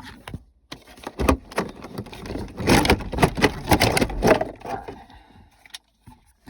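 Automatic shifter assembly being wrestled out of a Dodge car's center console: a run of rattling clunks and knocks from the shifter and its housing, busiest in the middle, then dying away.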